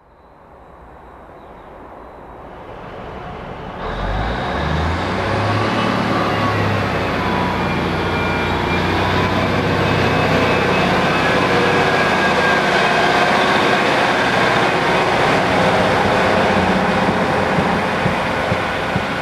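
Class 153 single-car diesel multiple unit approaching the platform, its diesel engine and wheels on the rails growing louder over the first several seconds and then holding steady. A low engine note steps up in pitch about four to six seconds in.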